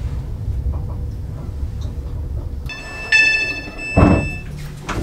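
Low running rumble inside an Avanti West Coast train carriage at a station stop. Nearly three seconds in, the door's electronic warning tone beeps steadily for about a second and a half, with a knock of the door mechanism about four seconds in, as the doors are released to open.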